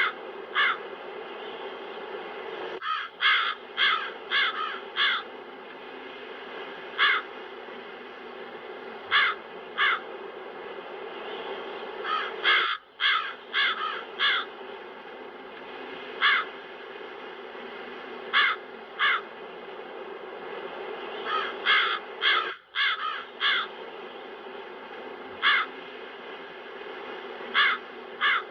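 Crows cawing in short runs of one to five harsh caws with pauses between, over a steady wind noise that cuts out briefly three times.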